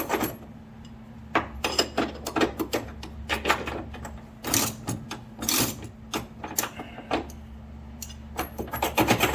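Wrench tightening a nylock nut on a rear leaf-spring shackle bolt: short bursts of metallic clicking, with the nut stiff now that its nylon insert has engaged, over a steady low hum.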